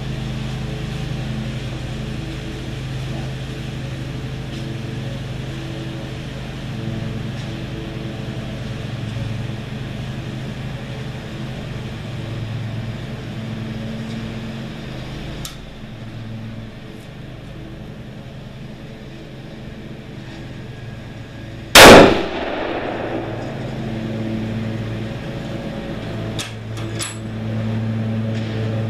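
A single loud rifle shot from a scoped rifle fired off a bench rest, about three-quarters of the way in, with a short ringing tail. A steady low engine hum runs under it, and a few light clicks follow the shot.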